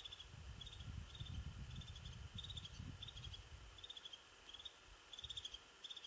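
A small bird calling over and over, short rapid chattering notes about twice a second, faint and high. A low rumble of wind gusting runs through the first half, then dies away.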